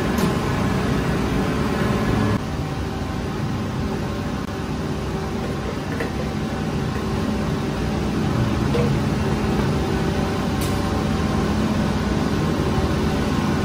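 Steady mechanical drone of bakery machinery, with several constant hum tones, dropping slightly in level about two seconds in. A couple of faint light clicks sit on top.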